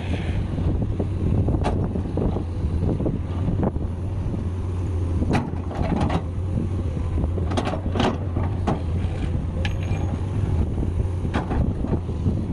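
Komatsu PC210 hydraulic excavator at work: its diesel engine running with a steady low hum, with irregular knocks and scrapes as the bucket digs into a pile of sandy soil.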